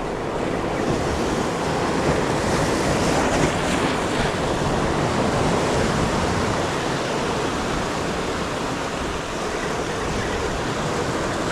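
Ocean surf washing against the shore, a steady rush of breaking waves that swells a little a couple of seconds in.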